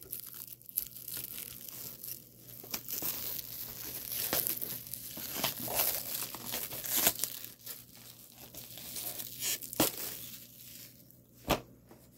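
Plastic wrapping crinkling and tearing as it is pulled off a VHS tape case, with two sharp clicks near the end.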